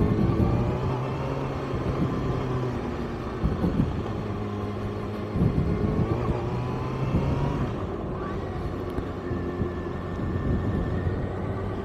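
Kawasaki ZX-6R inline-four sport bike engine running under way, its note holding steady and then shifting in pitch a few times as the throttle changes.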